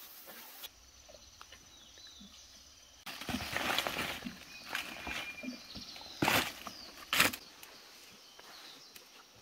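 Footsteps and rustling through dry leaves and dense undergrowth, heaviest a few seconds in, with two sharp cracks about a second apart past the middle, the loudest sounds here.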